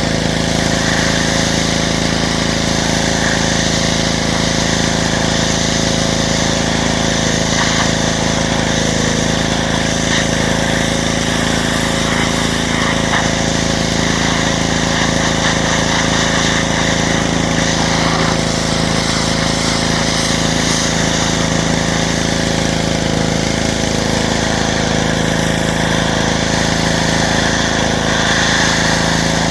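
Pressure washer running steadily with its water jet spraying, a constant motor drone under a hiss of spray.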